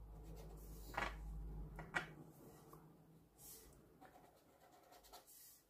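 Faint scratching of a pointed applicator tool rubbing gold metallic finish onto a stamped paper cut-out. Two light taps come about one and two seconds in.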